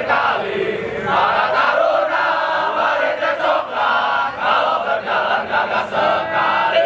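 A large group of military cadets chanting and shouting together in unison.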